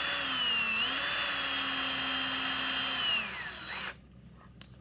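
Electric drill running steadily with a whining motor, spinning a length of all-thread to tighten the buffing-pad assembly. Its pitch dips briefly about a second in as it takes load, then it winds down and stops near the end, followed by a few faint clicks.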